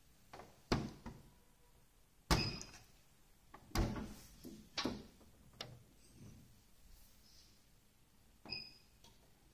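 Wheel balancer being handled: about six separate knocks and clunks, the loudest about two seconds in. Two of them come with a short high beep.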